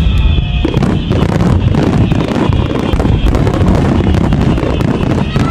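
Fireworks display going off: a dense, continuous run of bangs and crackles over a heavy low rumble.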